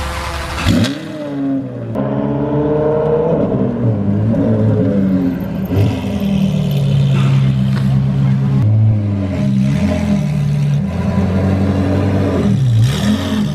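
Ferrari F430's 4.3-litre V8 with a straight-piped exhaust, the car moving slowly, its revs rising and falling several times.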